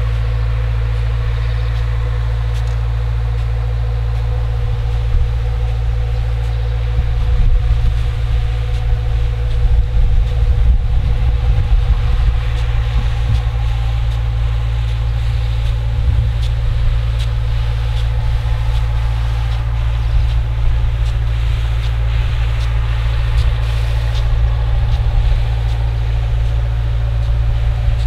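John Deere four-cylinder turbodiesel engine running steadily under load, driving a 1200 gpm center-pivot irrigation pump at 40–45 psi, heard as a distant steady drone from about a quarter mile away.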